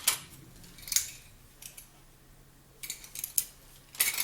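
Sharp clicks and clinks of small hard items being handled: a few single strikes, then a quick run of them about three seconds in.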